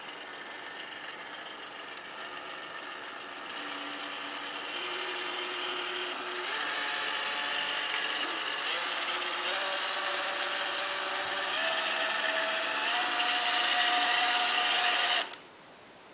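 Roomba robot vacuum running, a motor whine over a steady whirr that grows louder and steps up in pitch several times, then stops abruptly near the end.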